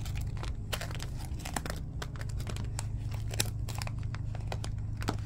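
Plastic packaging being handled and crinkled in a run of quick crackles and clicks, over a steady low hum.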